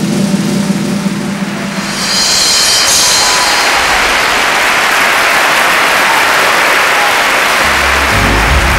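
A sustained musical note from the circus band, then about two seconds in a large circus audience breaks into loud applause that continues, with the band's music coming back in near the end.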